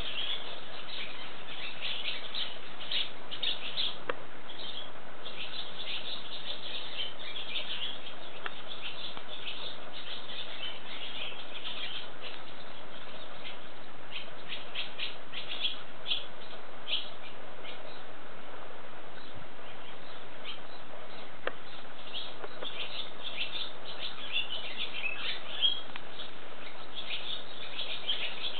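Barn swallows twittering, several birds together, in clusters of quick high chirps with a lull about two-thirds of the way through.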